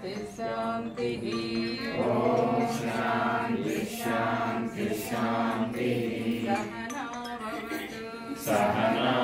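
Several voices chanting a Sanskrit Vedic shanti mantra together in slow, melodic phrases, with fresh phrases swelling louder about two seconds in and again near the end.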